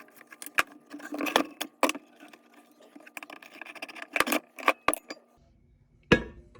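Metal parts clinking and clattering while the hand-crank blower of a rivet forge is worked on, a string of sharp metallic clinks with some ringing. A single loud knock comes about six seconds in.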